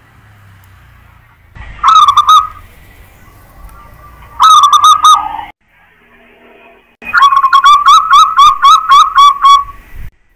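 Zebra dove (perkutut) cooing: three phrases of short, ringing coos, the last a quick run of about nine notes.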